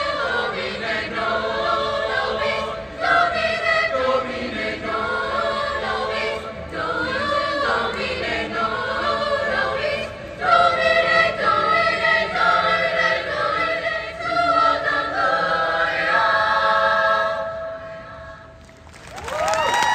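High school mixed chamber choir singing, ending on a held chord that fades away; applause and cheering break out in the last second.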